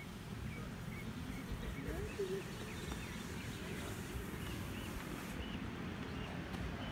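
Small birds chirping repeatedly in short high notes over a steady low rumble, with one brief wavering lower call about two seconds in.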